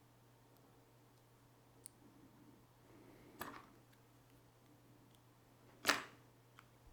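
Three small, sharp clicks from handling the opened Fitbit Charge 2 and its parts while the display is refitted for a test: a faint one about two seconds in, a short cluster a little later, and the loudest near the end. Under them runs a faint steady hum.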